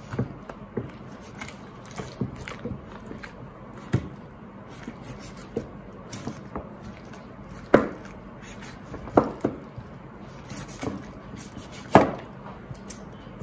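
Chef's knife cutting and scraping against turkey leg bone and a plastic cutting board while the leg is deboned: scattered light clicks and knocks, with a few sharper ones, the loudest near the end.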